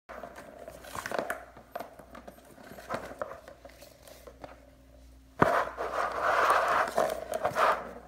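A puppy playing in a Bergan Turbo Scratcher cat toy: paws scraping the corrugated cardboard pad and the plastic ball rattling in its track, with scattered clicks. A sharp knock about five seconds in is followed by a louder stretch of scraping and rattling.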